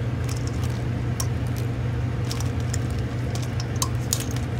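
Whole crabs being put by hand into a stainless steel pot of boiling broth: scattered light clicks, knocks and small splashes as the shells hit the pot and the liquid. A steady low hum runs underneath.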